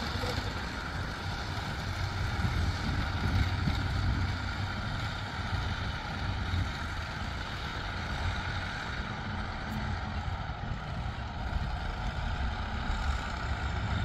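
Diesel engine of heavy earth-moving machinery running steadily, an even low rumble with no sharp knocks standing out.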